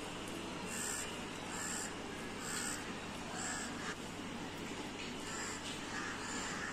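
A crow cawing over and over, short calls roughly once a second, over a steady low hum.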